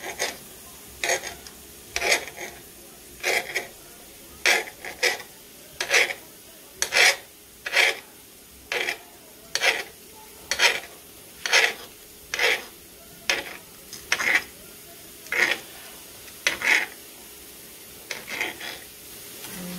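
Kitchen knife slicing smoked turkey sausage on a glass cutting board: a short, sharp scrape-and-click each time the blade cuts through and meets the glass, about one cut a second.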